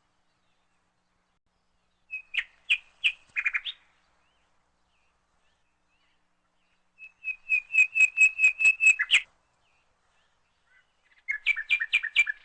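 A bird chirping in three bursts of rapid, high chirps: a short run about two seconds in, a longer run of about a dozen chirps near the middle, and another run near the end.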